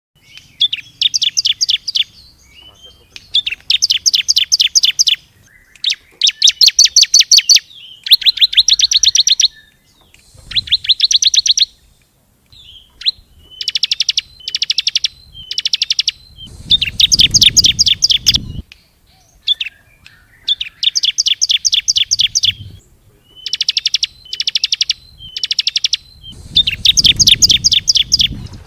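Ciblek (bar-winged prinia) song used as a lure call: loud, high phrases of rapidly repeated notes, each about a second long, repeated over and over with short pauses between them.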